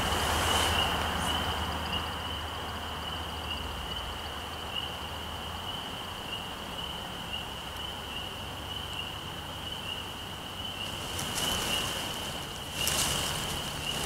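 American woodcock's wing twitter: a steady high trill from the male's wings during his courtship skydance flight, with a few sharper high notes near the end.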